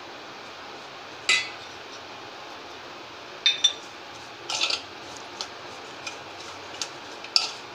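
Steel spoon clinking against a stainless-steel mixing bowl while stirring dry semolina with chopped vegetables and salt: several sharp, separate clinks at irregular intervals, about a second apart.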